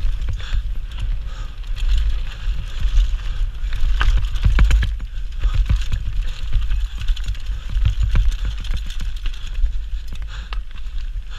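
Mountain bike descending a rough dirt trail at speed: steady wind rumble on the action camera's microphone, with the bike's constant rattle and many sharp knocks as it bounces over the bumps.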